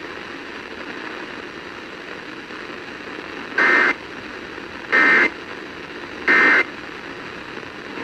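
Emergency Alert System end-of-message code: three short, identical warbling data bursts, evenly spaced a little over a second apart, played through a small portable FM radio's speaker over steady radio hiss. The bursts mark the end of the required monthly test message.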